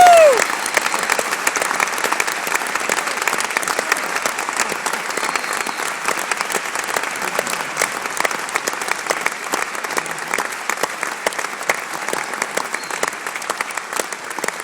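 Large audience applauding: dense clapping that slowly thins and fades. A short pitched cry sounds right at the start.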